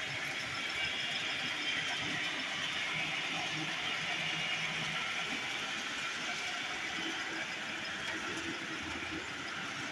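Model trains running on a layout: a steady whir of small electric locomotive motors and wheels rolling along the track.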